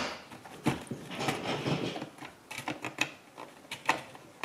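Irregular clicks, taps and small rattles of hands working on the plastic centre-console trim around a car's gear lever.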